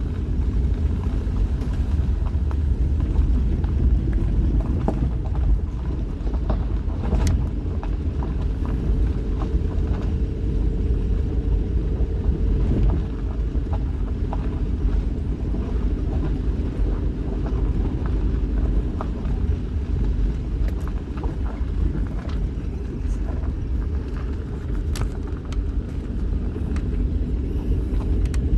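Vehicle driving steadily: a low, even engine and road rumble with scattered small knocks and rattles.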